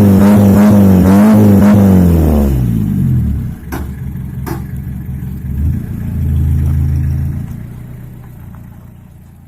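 Mitsubishi L300's engine revving through a custom funnel-tip truck exhaust: the revs hold high for about two seconds, then fall back to idle. Two sharp clicks follow, then a shorter, lower rev, and the sound fades out.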